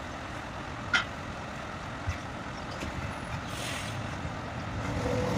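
Low, steady rumble of truck engines and road traffic, with two short sharp clicks about one and two seconds in and a brief hiss in the middle.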